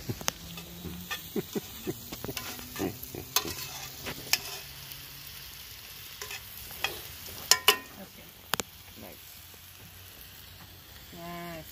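Sliced onions and mushrooms sizzling steadily in a cast iron skillet while they caramelize, with metal tongs clinking and scraping against the pan every second or so as they are stirred.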